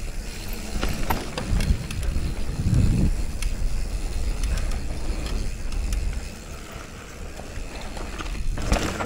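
Mountain bike riding down a dirt downhill trail: rumble of wind and tyres on the microphone with scattered knocks and rattles from the bike. It eases off about six seconds in, with a brief louder burst near the end.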